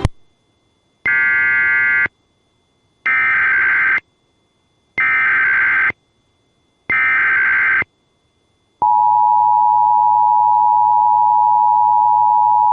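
Emergency Alert System activation: four screeching digital data bursts of the SAME header, each about a second long with about a second between them. About 9 seconds in, the steady two-tone EAS attention signal starts.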